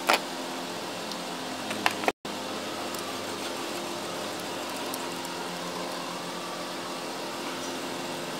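A steady mechanical hum like a running fan, with a sharp click just after the start and two more clicks near two seconds in as parts are handled in the engine bay. The sound cuts out for an instant just after the clicks.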